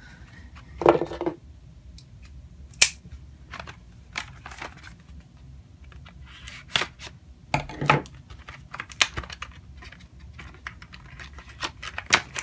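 A Smith & Wesson folding knife cutting the seal on a cardboard box, with scattered sharp clicks and short scrapes as the box is handled and its flap opened.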